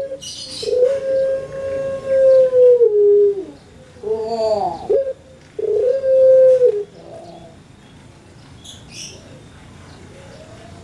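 Caged ringneck (Barbary) dove, a puter of the long-voiced pelung type, cooing. One long drawn coo is held for about three seconds and drops at the end, then a short arched note follows, then a second, shorter coo about halfway through. The last few seconds hold only brief high chirps.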